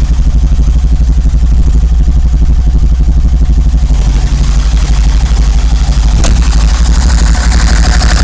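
1990 BMW 525i engine running rough with a misfire, its exhaust beat uneven and pulsing. A single sharp pop comes about six seconds in.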